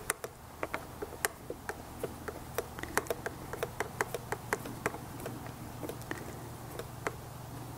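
Faint, irregular light clicks of a 3 mm T-handle hex key turning a small screw into a metal windscreen bracket, with a low steady hum underneath.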